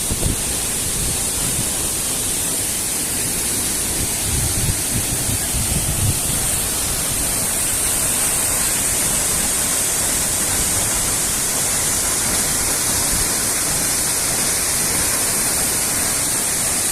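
Waterfall rushing: a loud, steady hiss of falling water, with a few low bumps on the microphone about four to six seconds in.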